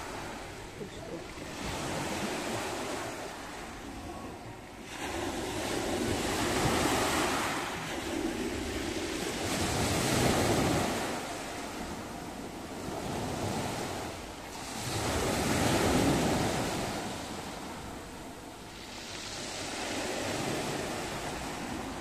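Black Sea surf breaking and washing up a pebble beach, swelling and falling away every few seconds.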